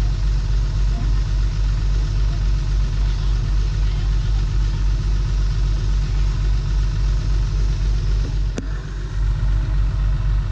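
Heavy equipment diesel engine running steadily with a fast, even low pulse, working to pull a sunken excavator from the mud. A single sharp click comes a little past eight seconds in, as the engine briefly goes quieter.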